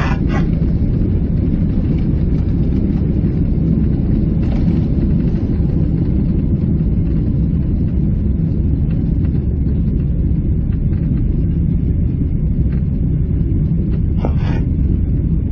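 Boeing 777-300 cabin noise heard from the rearmost seat: a loud, steady, low rumble of the engines and airflow.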